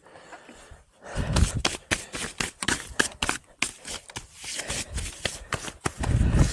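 Mountain bike rattling along a rough forest trail: irregular clicks and knocks from the bike and tyres over roots and dirt, with heavy breathing from the rider rising and falling a few times.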